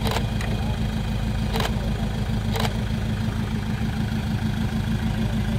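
Toyota Hilux pickup's engine idling steadily, with three short sharp clicks in the first three seconds.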